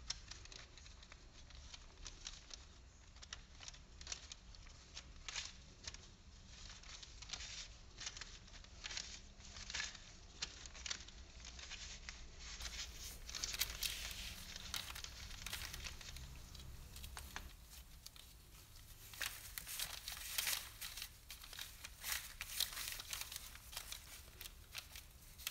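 Faint, irregular crinkling and rustling of parchment paper and thin disposable plastic gloves as gloved hands twist strips of soft dough.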